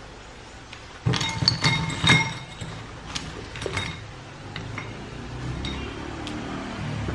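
Wire mesh strainer clinking against a bowl as fried potato chips are tipped out of it: a cluster of sharp ringing clinks and rattles starting about a second in and lasting some three seconds, then a few scattered light ticks.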